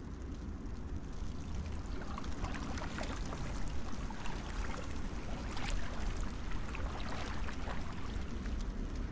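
Water splashing and dripping in many small irregular ticks, thickest through the middle seconds, over a steady low rumble.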